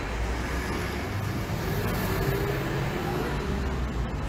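Street traffic on a town road: steady road noise, with a car going by about halfway through, its tyre hiss swelling and fading.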